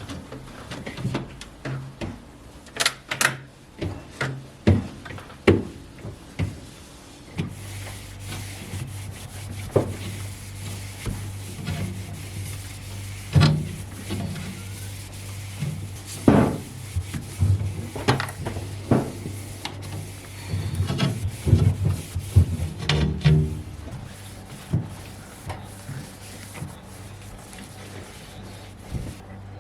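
Household objects being handled and put away: a run of knocks, clicks and rubbing as things are set down and moved, with a steady low hum that starts about seven seconds in.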